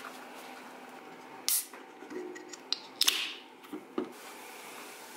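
A Michelob Ultra beer can is cracked open about three seconds in: a sharp pop followed by a short fizzing hiss. A brief sharp noise comes a second or so before it, and a few small clicks follow.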